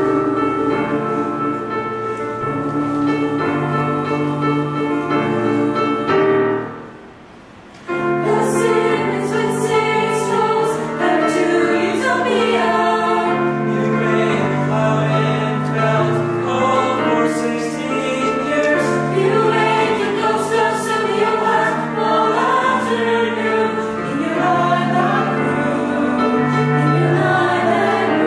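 Youth choir singing in harmony, a cappella: a held chord stops sharply about six seconds in, followed by a rest of just over a second, then the voices re-enter with a quicker, more rhythmic passage of moving parts.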